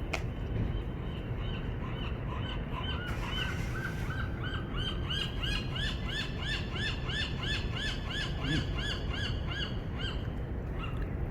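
A bird calling a rapid series of short notes that each rise and fall, about four a second, for several seconds over a steady low background rumble. A sharp click right at the start.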